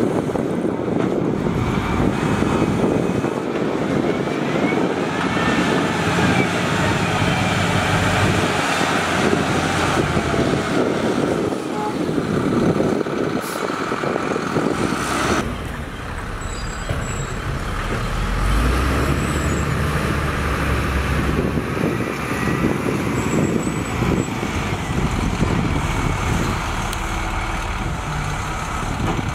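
Heavy diesel engines running: a Matador ML50 wheel loader's engine working as its bucket pushes into a sand pile. About 15 seconds in the sound switches to a deeper, steadier engine from a dump trailer truck and a second wheel loader.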